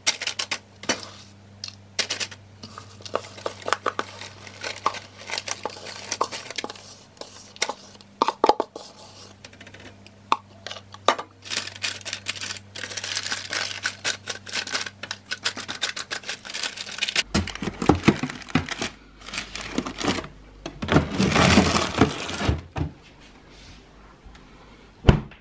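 Kitchen handling sounds while the protein bar mixture is worked: a run of short clicks, clinks and scrapes from utensils and dishes, then louder rustling stretches near the end over a low hum.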